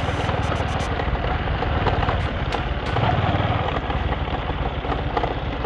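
Small motorbike engine running steadily as the bike is ridden along a rough dirt track, with a few light clicks and rattles over it.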